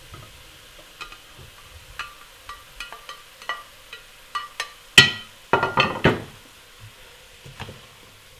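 Browned meat cubes pushed off a baking dish with a metal spatula into a hot stainless-steel pot: faint sizzling under scattered light clinks, then one loud ringing clink about five seconds in and a short run of clattering scrapes.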